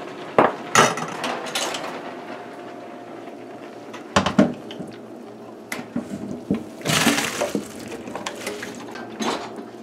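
A pan of boiled elbow macaroni being handled with a few knocks of metal, then tipped out into a plastic colander in a steel sink: a splashing rush of water and noodles about seven seconds in, and a shorter one near the end.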